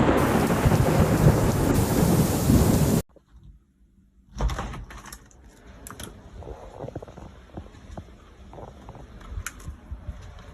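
Loud, steady rush of storm noise that cuts off suddenly about three seconds in. After about a second of near silence comes quieter gusting wind with scattered clicks and knocks.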